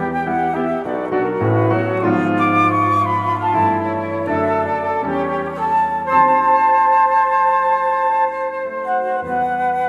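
A flute plays a slow melody over piano accompaniment, holding one long note through much of the second half.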